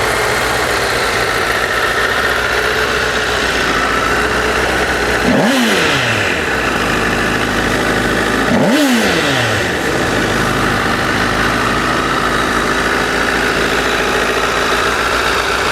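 2009 Honda CBR1000RR's inline-four engine idling steadily, with two quick throttle blips about five and a half and nine seconds in, the revs shooting up and falling straight back. The engine sounds good and tight, with no unusual engine noise.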